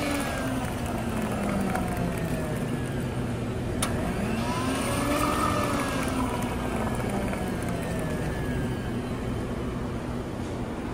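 Cappuccino dispensing machine running as it pours hot coffee into a cup: a motor hum that rises and then falls in pitch, twice, over a steady rushing pour, with a single sharp click about four seconds in.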